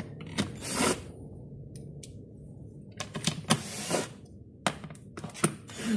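Cordless drill-driver driving bolts through a steel seat-mechanism bracket into a gaming-chair seat, heard as irregular bursts of sharp clicking and rattling, loudest about three to four seconds in.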